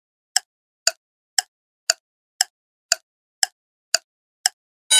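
Quiz countdown-timer sound effect: clock ticks, about two a second, evenly spaced. Near the end a buzzing alarm tone starts, marking that the time to answer is up.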